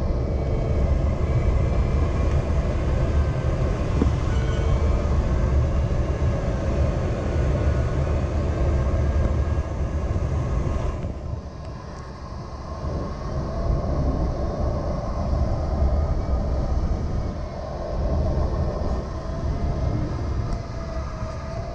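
Steady rush of air past a Nimbus 3DT glider's cockpit canopy while it climbs in lift. Under it runs a faint electronic variometer tone that slowly wavers in pitch. About halfway through, the hiss briefly drops and the air noise dips.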